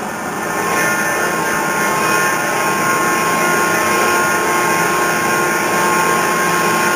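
A machine running steadily, with steady tones including a whine; it rises in level over the first second, then holds even.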